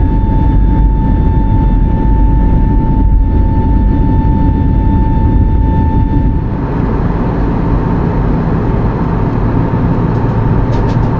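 Airbus A320neo taking off: loud, steady jet engine and airframe rumble with a steady whine. About six and a half seconds in, the whine fades and a rushing hiss of air rises.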